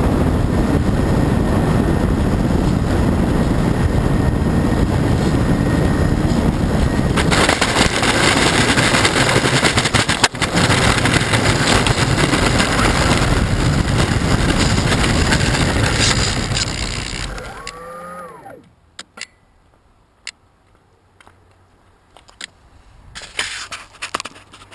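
Radio-controlled model airplane's motor running with loud rushing noise. About 17 seconds in, the motor spins down with a falling whine and the sound drops away. A few faint clicks follow.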